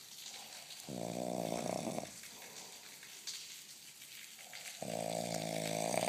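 A man snoring: two snores about four seconds apart, each lasting about a second with a low, buzzing pitch, the second a little longer.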